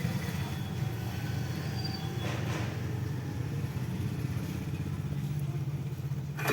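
Steady low hum of a hot air rework station's blower running while the phone's charging jack is desoldered from the board.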